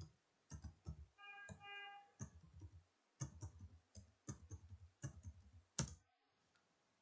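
Computer keyboard keys typed in quick clusters of clicks. A short two-note tone sounds about a second in.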